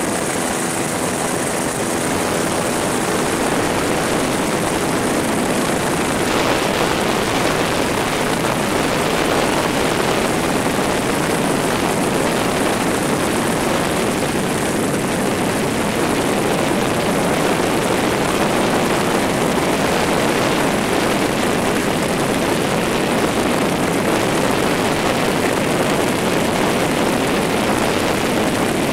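Helicopter in flight heard from inside the cabin: a steady, even rush of engine and rotor noise.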